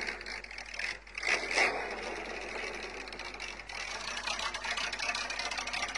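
Road-legal Porsche 917's engine idling, a steady, rapid, even pulse from its exhaust, with a brief louder patch about a second in.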